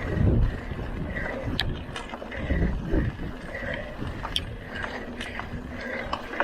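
Mountain bike being ridden: scattered sharp clicks and rattles from the drivetrain over a steady low rumble of riding noise.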